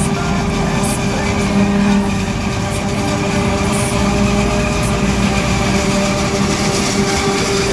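Heavy vehicle engine running steadily, a constant drone with no change in speed.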